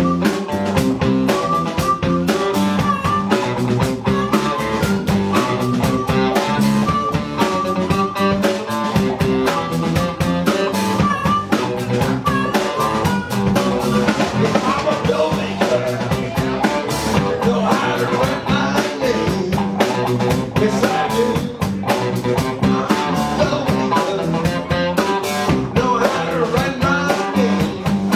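Live blues band playing: electric guitars, bass guitar and drum kit with a steady beat.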